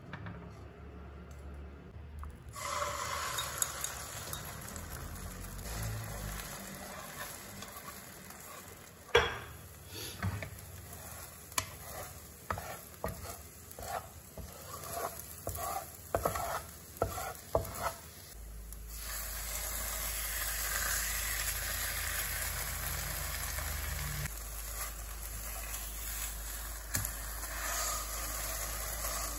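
Food sizzling in a hot wok. A run of about a dozen sharp knocks and scrapes comes in the middle as a wooden spatula works scrambled eggs against the pan. A steadier, louder sizzle follows as a pork cutlet fries.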